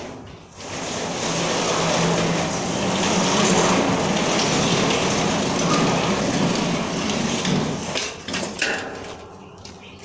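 Steel folding garage door being pulled shut along its track: a long continuous rolling rumble of the hinged panels for about seven seconds, then a few knocks near the end as the panels close up.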